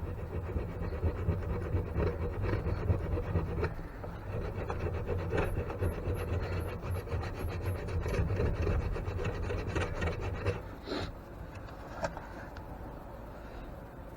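Metal file scraping back and forth over the worn bearing of an antique grain mill, cutting into the Babbitt liner to bare the iron shell beneath; the strokes run for about ten seconds and then stop, followed by a couple of short knocks.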